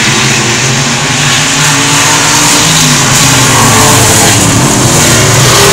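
Dirt-track stock car engines running loudly, several at once, their pitches rising and falling as the cars accelerate and back off around the oval.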